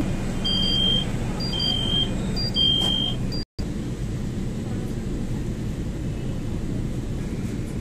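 Metro carriage hum with three short, high electronic beeps about a second apart in the first few seconds, the kind of warning chime sounded as metro train doors close. The sound drops out for an instant, then the steady low hum of the carriage goes on alone.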